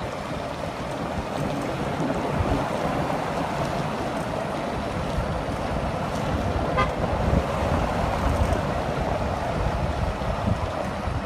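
Steady hiss and rumble of car traffic on a wet steel-grate bridge deck, with wind buffeting the microphone. A short toot sounds once, about seven seconds in.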